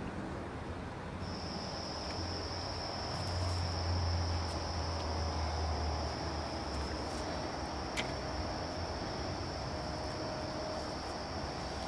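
An insect trilling in one steady, unbroken high note that starts about a second in, over a low rumble that swells in the middle; a single click about eight seconds in.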